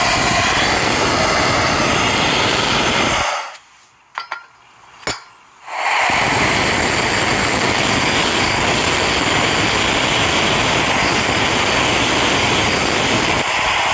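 Gas torch flame blowing steadily into a ceramic crucible, heating a gold bar to melt it. The torch noise cuts off for about two seconds a few seconds in, with a couple of light clicks in the gap, then starts again.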